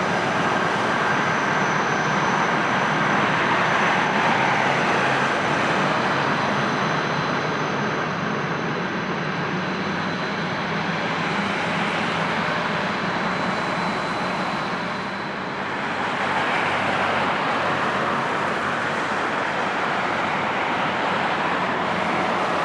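Jet airliner passing low on final approach to land, a steady rush of engine noise with faint high-pitched whining tones from the engines.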